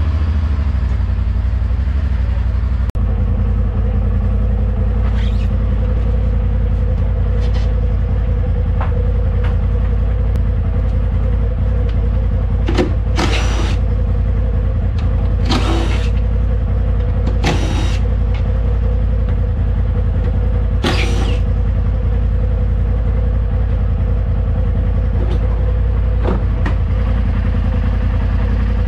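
2020 Polaris RZR Pro XP engine idling steadily while it warms up before an oil change. Over it, several short whirring bursts of a cordless impact driver backing out the bed's fasteners, mostly in the middle stretch.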